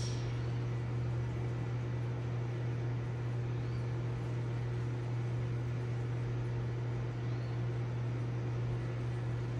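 Steady low hum of a reef aquarium's pump running, over a faint even hiss.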